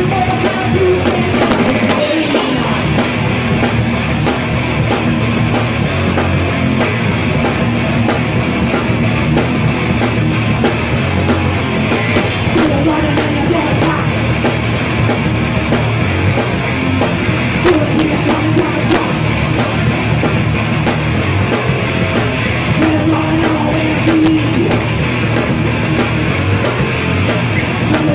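Live rock band playing loud, continuous music: electric guitars, electric bass and a drum kit.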